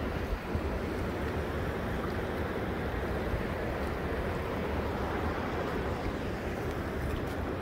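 Steady rushing roar of the Niagara River's whirlpool rapids, with a deep low rumble under it.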